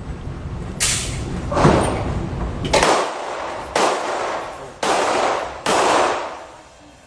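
Six gunshots about a second apart, each followed by a short echoing tail.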